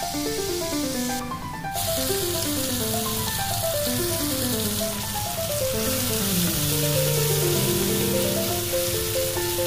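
Butter foaming in a pot, then, after a brief break in the hiss about a second and a half in, chopped red onions and garlic sizzling as they fry in a pan. Background music with a stepping melody plays throughout.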